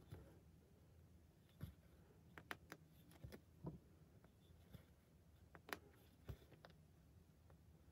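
Faint, irregular ticks and light scratches of a needle and embroidery floss passing through 18-count Aida cloth during cross-stitching.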